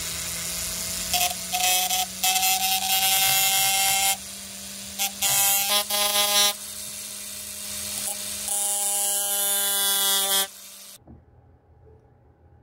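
Flex shaft rotary tool running with a small diamond cutting disc, which whines and hisses louder in three bouts as it cuts grooves into the metal piece. The motor stops about 11 seconds in.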